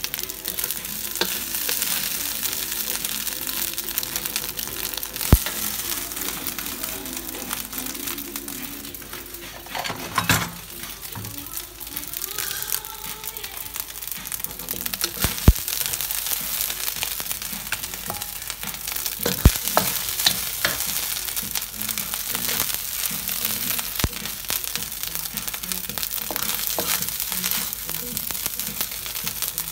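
Fried rice sizzling in a hot wok as a wooden spatula stirs and scrapes it, with about five sharp knocks spread through.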